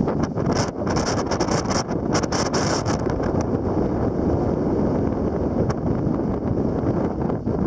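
Wind buffeting the camera microphone: a steady low rumble, with crackling gusts during the first few seconds.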